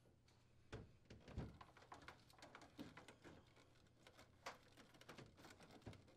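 Faint scattered clicks and rustles of a gloved hand handling wiring, tucking the defrost heater wire behind its plastic retainer.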